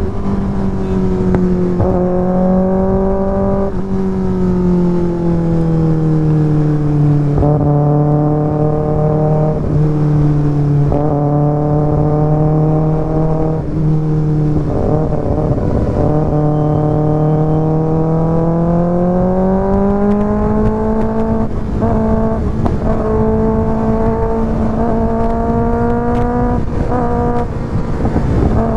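2024 Kawasaki ZX-6R's inline-four engine running through an IXIL aftermarket exhaust while riding at steady part-throttle revs. Its pitch sinks slowly over several seconds, holds low, then climbs back up again in the second half, with a few brief dips along the way.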